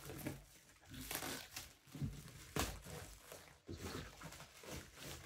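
Black plastic wrapping crinkling and tearing as it is sliced open with a safety knife, in irregular rips and rustles.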